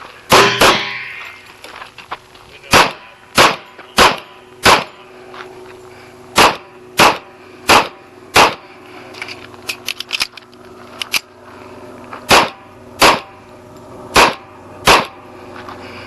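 Pistol shots from a Kimber Custom II 1911 in .45 ACP fired during a timed stage: about fourteen shots, a quick pair right at the start, then strings of four with the shots roughly two-thirds of a second apart. There are pauses of a couple of seconds between strings, with a longer gap of about four seconds before the last string.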